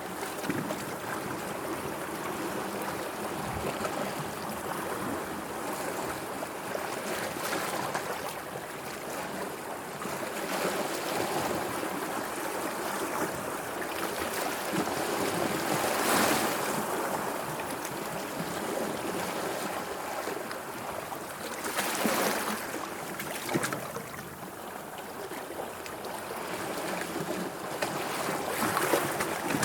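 Sea water washing and splashing continuously, with a few louder surges of a wave about halfway through, about three-quarters through and near the end.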